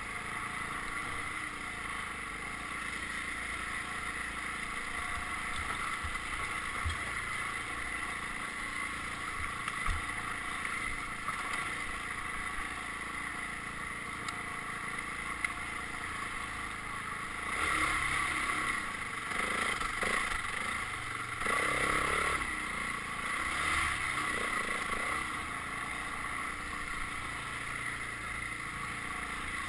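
Dirt bike engine running, louder in a few surges between about 17 and 25 seconds in.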